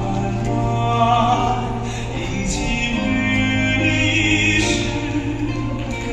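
Music with voices singing long held notes over a sustained low bass.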